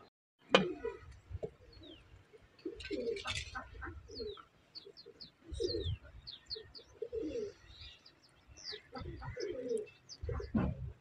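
Doves cooing over and over, with small birds giving short, high, falling chirps. A sharp knock about half a second in is the loudest sound.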